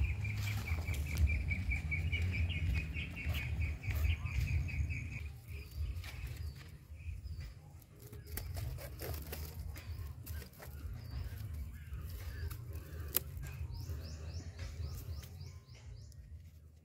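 A wicker basket rustling and creaking as a caught frog is pushed in and the lid closed, with scattered small clicks and one sharp click near the end. For the first five seconds a rapid, even trill of high chirps runs over a low wind rumble.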